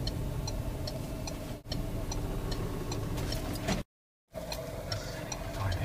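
Car turn-signal indicator ticking steadily, about two to three clicks a second, over the low hum of the engine and road noise inside the car. The sound drops out completely for a moment about four seconds in.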